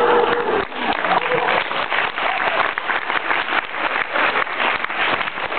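Audience applause: many hands clapping fast and densely, picking up about a second in.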